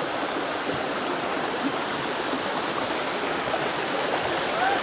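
Shallow forest stream flowing over rocks: a steady water noise.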